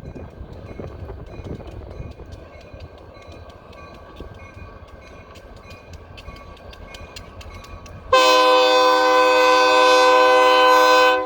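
Freight train rolling by, its wheels clicking over the rail joints. About eight seconds in, an EMD SD40 locomotive's air horn sounds one loud, steady blast of about three seconds that cuts off abruptly.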